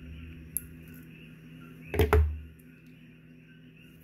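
Handling noise: a small click about half a second in, then a single dull thump about two seconds in.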